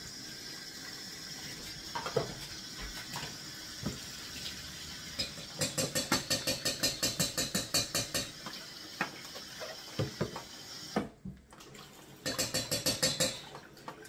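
Kitchen tap running into a stainless-steel sink while raw salmon pieces are rinsed by hand in a plastic tub, with splashing and light knocks against the tub. Two spells of quick, rhythmic rubbing and sloshing come about a third of the way in and again near the end, and the running water cuts out for about a second just past the halfway mark.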